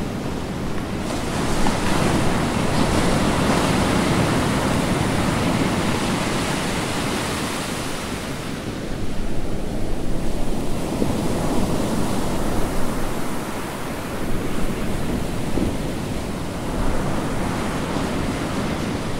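Ocean surf: a steady rushing of waves that swells and eases, loudest around the middle.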